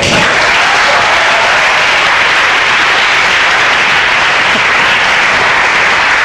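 Audience in a hall applauding, a dense steady clapping that starts suddenly and holds at an even level.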